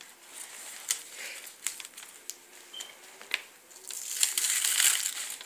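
Wrapping paper on a gift box being picked at and torn by hand: scattered small crackles and ticks, then a longer, louder stretch of tearing paper about four seconds in.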